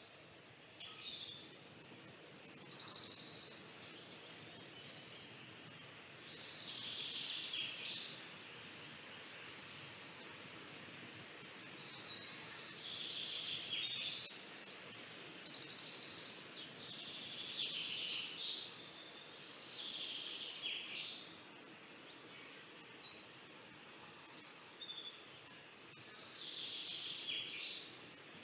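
Pencil scratching on paper in runs of quick back-and-forth shading strokes, each run lasting one to three seconds with short pauses between them.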